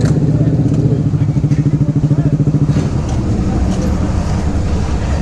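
Motorcycle engines idling close by: a steady idle with fast, even pulses for about the first three seconds, after which that note drops away and a rougher, lower engine rumble goes on.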